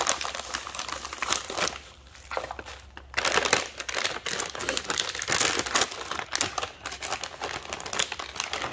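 Plastic packaging crinkling as it is handled and unwrapped to get at a replacement circuit board. The crinkling is dense and irregular, eases off for about a second, then grows louder again about three seconds in.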